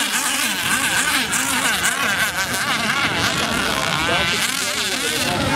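Two RC racing catamarans' motors buzzing at speed across open water. Their pitch wavers up and down as the boats run and turn.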